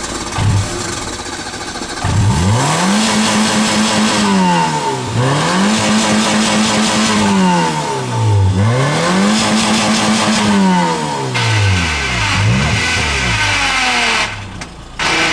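Citroën Saxo petrol engine being revved hard with the accelerator pumped: about three long revs that climb, hold high and fall back to a low idle, then a shorter blip. The sound drops out briefly near the end.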